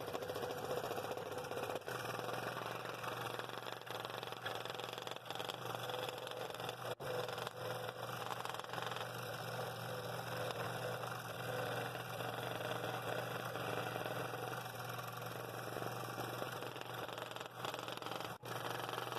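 Scroll saw running steadily with a No. 7 Pegasus modified-geometry blade, cutting a bevelled ring out of a wooden disc with the table tilted to 22 degrees.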